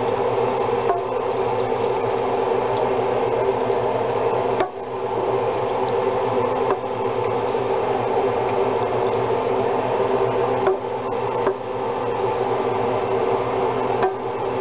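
A steady mechanical hum holding several constant pitches, with red wine being poured from a cup over beef chuck roasts in a slow-cooker crock and a few faint knocks.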